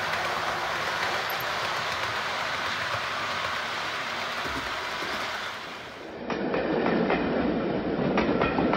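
Model trains rolling along OO gauge track with a steady rushing rattle. About six seconds in it cuts to a different train recording: wheels clicking over rail joints in a clickety-clack.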